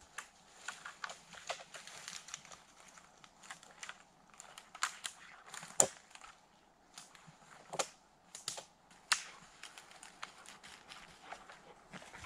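Irregular sharp snaps and crackles of dry twigs and dead branches breaking underfoot on a forest floor covered in deadfall, with the loudest snap about halfway through.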